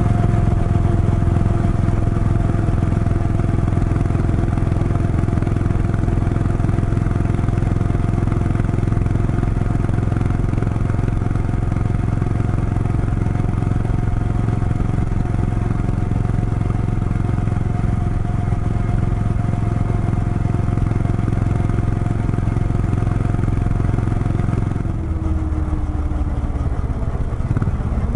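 Motorcycle engine running steadily at cruising speed. About 25 seconds in, the engine note drops and glides lower.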